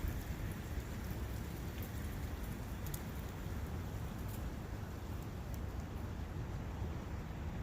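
Steady forest ambience: wind with a brook running, plus a few faint ticks.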